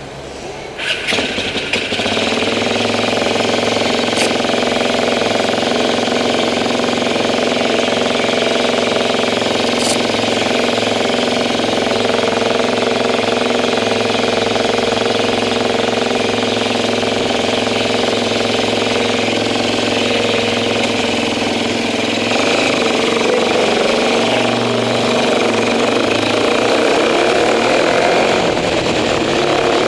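Motorcycle engine running steadily through its exhaust, jumping up in loudness about a second in and then holding an even, loud note.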